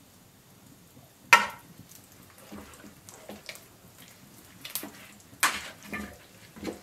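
A glass jar set down on the table with a sharp clack about a second in, then wet, sticky handling of raw sauce-covered ducks on a metal tray, with scattered knocks and clinks from the tray, the loudest about five and a half seconds in.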